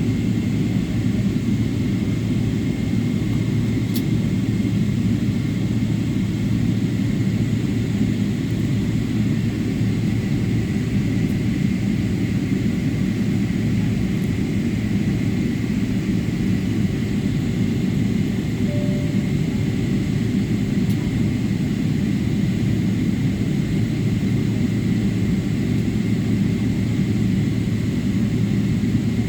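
Airliner cabin noise while taxiing after landing: a steady engine and airframe rumble with a thin, steady whine above it.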